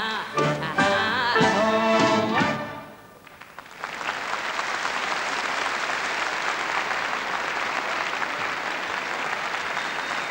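A woman's singing voice with orchestra finishes a song on wavering held notes; after a brief drop, about four seconds in, a large concert hall audience breaks into steady applause.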